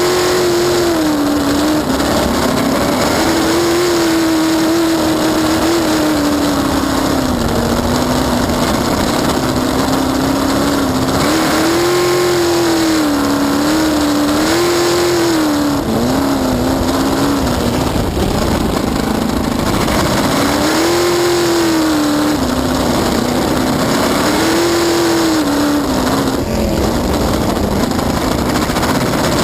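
Cracker box race boat's engine running hard under way, heard from on board. Its pitch rises and falls every couple of seconds over a steady rush of wind and water.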